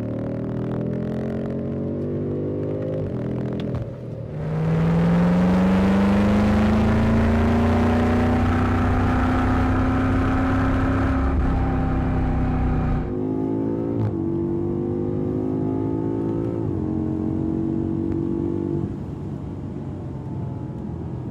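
BMW M5 engine accelerating hard, its pitch climbing and then dropping back at each upshift, about four seconds in and again near the middle; it is loudest in the long pull between those shifts and eases off near the end.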